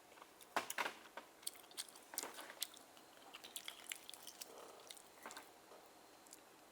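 Close-up mouth sounds of someone eating steamed oysters: wet smacks, slurps and chewing clicks, loudest and busiest in the first couple of seconds, then thinning out.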